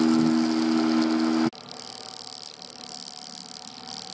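Honda outboard motor running the small boat at speed, then cutting out abruptly about a second and a half in as the boat comes off the plane, leaving only a faint hiss of water.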